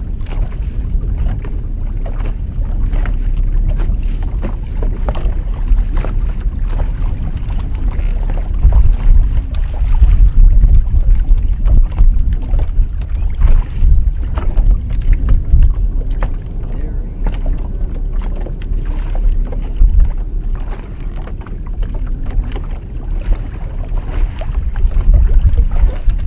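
Strong wind rumbling and buffeting on the microphone in gusts, over choppy water slapping against the boat.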